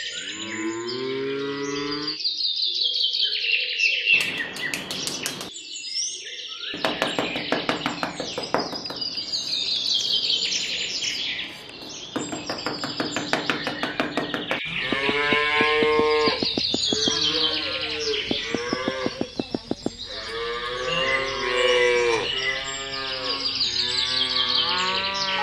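Cattle mooing over and over, long drawn calls that bend in pitch, with a fast run of clicking or rattling in the middle.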